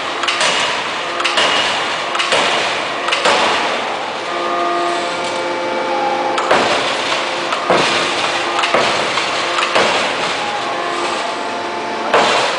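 3-ton double-column open-die forging hammer striking a glowing hot workpiece: heavy blows about once a second in runs, broken by two pauses of a couple of seconds, with metallic ringing between the blows.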